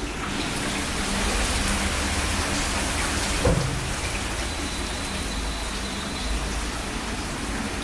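Steady hiss of rushing water from heavy rain and flooding, with a short thud about three and a half seconds in.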